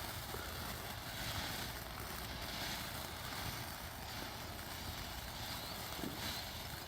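Faint, steady outdoor background noise with no bangs, crackles or hiss from a firework.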